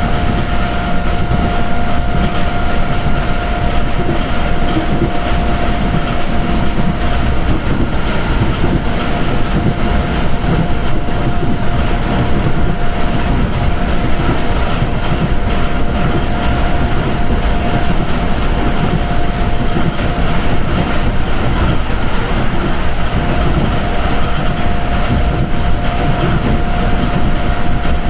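Moving passenger train heard from inside the carriage: a steady, dense rumble of wheels on the rails with a steady high whine over it.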